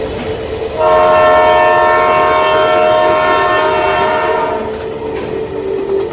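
Train horn sounding one long blast of about four seconds, starting about a second in, over a steady hum.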